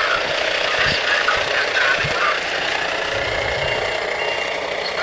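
A fire engine's diesel engine running steadily, with a thin high whine joining about halfway through.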